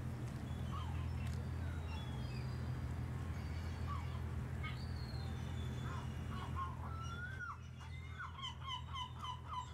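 Bird calls: scattered short chirps and glides, then a quick run of about a dozen repeated notes near the end, over a steady low hum.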